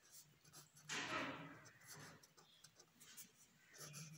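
Faint scratching of a pen writing on notebook paper, with one longer stroke about a second in and a few light taps and ticks after it.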